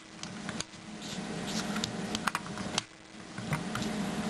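Hands handling and fitting a plastic smoke-alarm wiring adapter: small scattered clicks and rubbing, over a faint steady hum.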